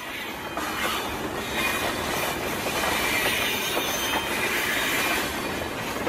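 Steady rushing noise of a train in motion, its wheels running on the rails, used as a white-noise track.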